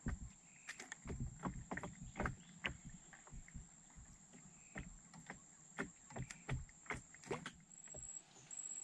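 River water lapping and slapping against the hull of a small wooden boat: irregular light knocks and splashes a few times a second, which stop shortly before the end. A faint steady high-pitched whine runs behind them.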